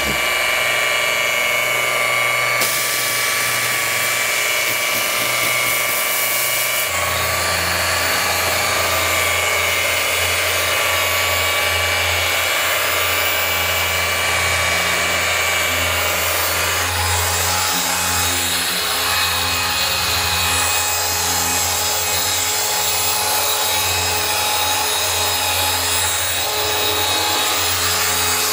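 Machine polisher running steadily on a painted car hood, compounding out sanding scratches. Its sound changes a few times, about three seconds in, again about seven seconds in and once more about halfway through.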